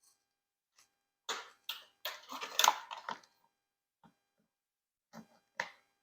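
Light clicks and knocks of hard parts being handled and fitted together, in a quick cluster from about one to three seconds in and twice more near the end.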